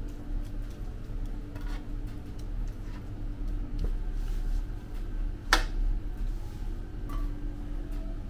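A steady low machine hum with scattered light clicks and knocks over it; one sharp click stands out about five and a half seconds in.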